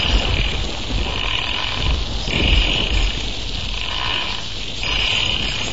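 Eerie horror sound effect: a deep, steady rumble overlaid with a hissing, growl-like noise that swells and breaks off several times.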